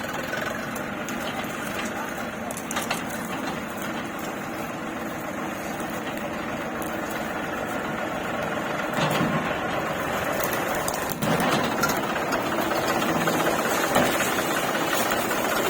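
A motor running steadily, with a few clicks, growing a little louder about eleven seconds in.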